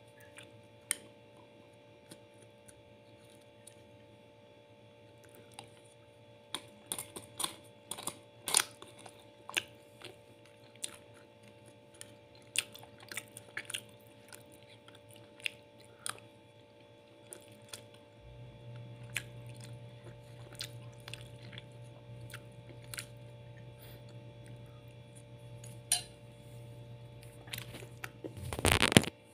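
Someone eating rice with a plastic spoon: the spoon clicks and scrapes against the plate, with chewing, in short irregular sharp sounds over a faint steady hum. A low hum joins about two-thirds of the way in, and a loud rustling burst comes just before the end.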